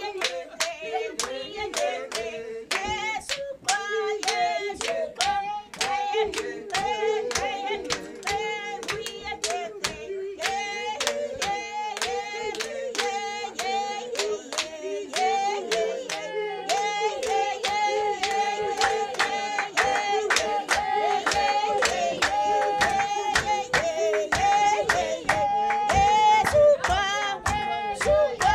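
A woman singing a song into a microphone, with steady rhythmic hand-clapping keeping the beat throughout.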